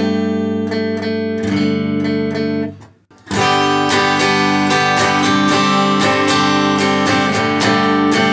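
Semi-hollow Epiphone electric guitar played clean: a G sus2 chord rings out for nearly three seconds and is damped, then after a short pause a steady strummed rhythm starts, moving between G major and G sus2.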